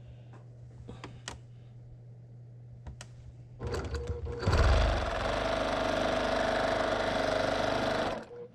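Brother PQ1500SL straight-stitch sewing machine starting up about halfway through and stitching at a steady fast speed for about three seconds. It stops sharply just before the end. A few light clicks come before it starts.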